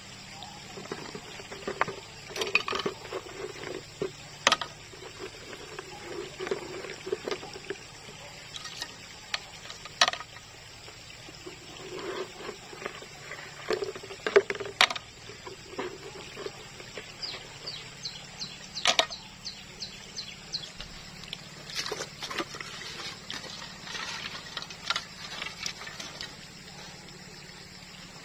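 Water splashing and sloshing as hands and a plastic bucket work in a shallow stream pool, with irregular sharp knocks and clicks.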